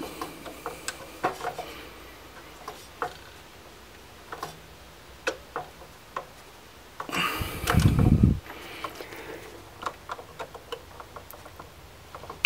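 Scattered small clicks and ticks of a screwdriver and wire being worked as the red hot wire is fastened and tightened into the GFCI breaker's terminal. About seven seconds in there is a louder muffled rustle lasting over a second.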